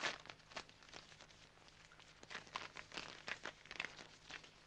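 Faint rustling and crinkling of a sheet of paper being handled: a sharper rustle right at the start, then a string of short soft crackles in the second half.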